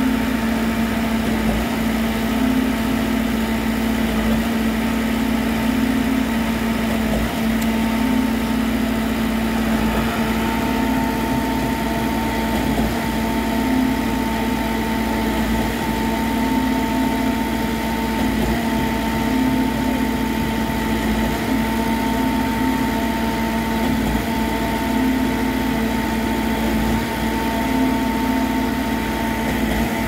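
Trailer-mounted diesel concrete pump running steadily under load while pumping concrete through its hose. A short regular dip comes about every three seconds, in time with the pump's piston strokes changing over.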